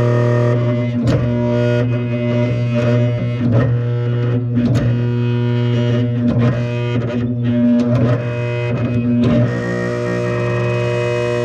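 Seized electric motor in an HVAC unit humming loudly when powered but failing to start, with irregular clicks over the steady hum. The oiling has not freed it.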